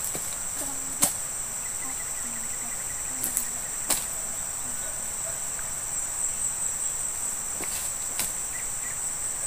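Steady high-pitched chirring of insects, with a few sharp knocks scattered through it, the loudest about a second in.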